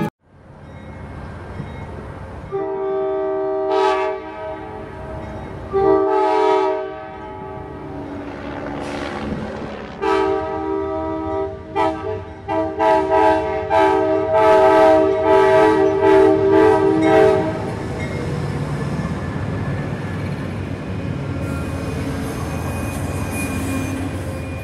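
A train horn sounding in several long blasts, a short one, another short one, then a longer run of repeated blasts, over a steady train rumble that carries on after the horn stops.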